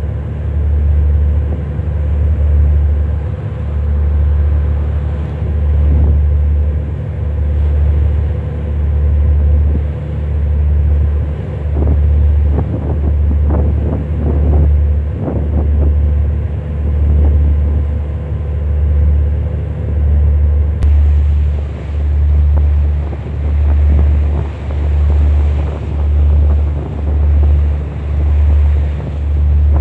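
Low, loud rumble that swells and fades about every second and a half, with wind buffeting the microphone; a short run of knocks near the middle.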